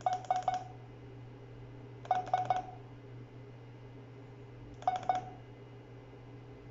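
Keypad beeps from a ZKTeco F18 fingerprint access terminal as its keys are pressed: three quick runs of short, identical electronic beeps, about four, then four, then two. Keys are being tapped repeatedly to cycle through the characters on each key while typing in letters.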